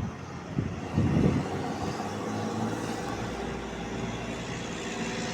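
A motor vehicle's engine idling steadily nearby, a low even hum, with a few short voice-like sounds in the first second and a half.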